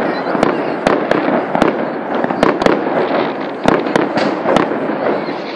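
A fireworks display going off: many sharp bangs in quick, irregular succession over a dense crackle.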